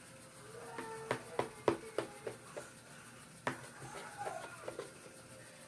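Metal knife and fork clicking and scraping against a plate while cutting fried chicken, a string of sharp clinks in the first few seconds.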